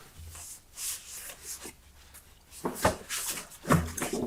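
Close-up rubbing and handling sounds: soft, irregular strokes, with a few sharper clicks in the second half.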